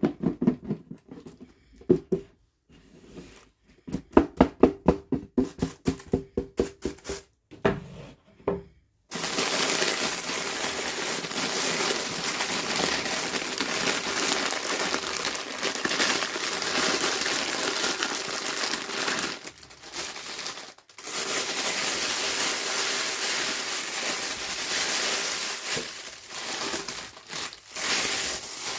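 Toy packaging being handled and opened: a run of taps and clicks on the packaging, then, about nine seconds in, a long continuous crinkling and tearing of wrapping.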